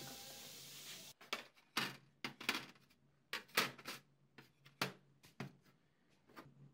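Steady hiss from steaming parts for about the first second. Then, after a cut, sheet-metal fan blade pieces are set down one by one in a galvanized steel tray, giving about ten uneven metallic taps and clinks.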